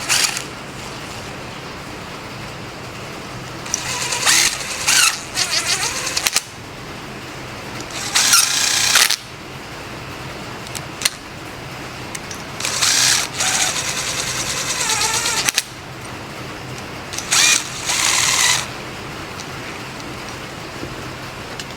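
Several short bursts of rustling and clicking from hub and bearing parts being handled and unpacked, about four seconds, eight seconds, thirteen to fifteen seconds and seventeen seconds in, over a steady low hum.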